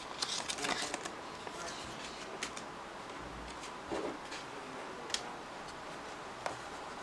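Handling noise: a paper card rustling in the hands near the start, then a few scattered light clicks and a duller knock as the plastic alarm clock and its power adapter are picked up and moved on a table.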